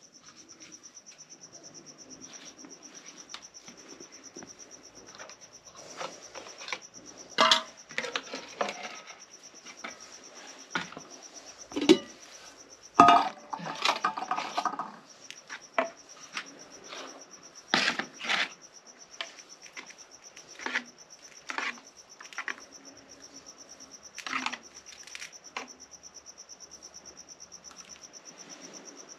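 Metal ladle and spoon clinking and scraping against metal pots and plates as food is dished out, in short irregular knocks. A steady high-pitched insect trill runs underneath, dropping out briefly about halfway.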